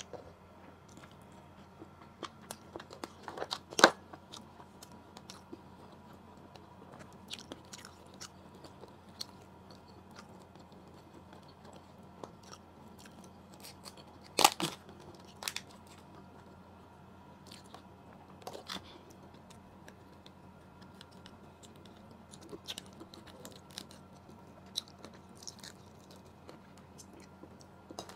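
Close eating sounds of a woman eating by hand: chewing with scattered crunches and mouth clicks. Sharp cracks and snaps come as a cooked blue crab's shell is pulled apart, the loudest about four seconds in and about halfway through.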